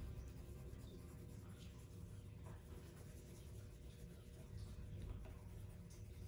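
Faint scratching of pencils on paper in short, irregular strokes as the eyes of a drawing are coloured in.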